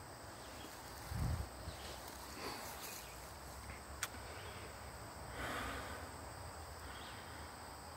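Faint woodland background with a soft low thump about a second in, a single sharp click around four seconds, and a brief rustle a little after five seconds.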